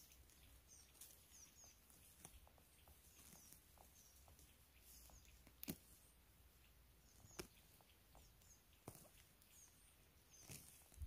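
Near-quiet forest: faint, high, short bird chirps repeat every second or two, with a few soft sharp clicks; the loudest click comes near the middle.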